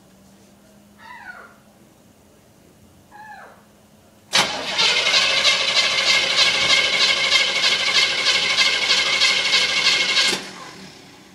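Two short squeaks falling in pitch, about one and three seconds in. Then an engine cranks on its starter: it comes in suddenly about four seconds in, pulses evenly and rapidly over a steady whine, and cuts off about ten seconds in.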